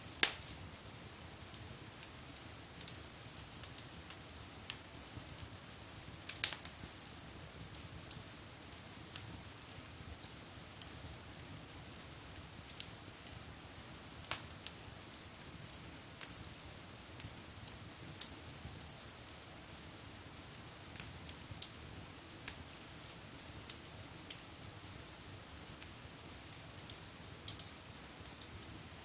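Wood fire burning in a fireplace: scattered sharp crackles and pops over a low steady hiss, the loudest pop just after the start.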